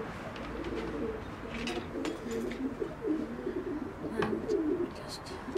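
A pigeon cooing in repeated low phrases, with a few light clicks and knocks mixed in.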